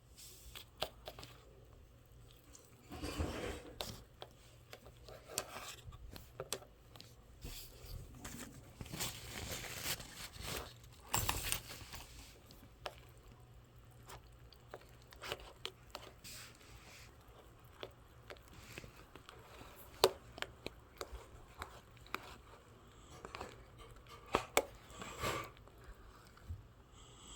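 Intermittent handling noises: rustling and crinkling bursts with scattered small clicks and taps, and one sharp click about twenty seconds in.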